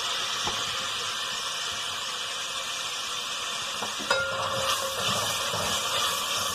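Chopped tomatoes, onions and green chillies sizzling in hot oil in an aluminium pot, a steady hiss. From about four seconds in, a spoon stirs them, clicking and scraping against the pot.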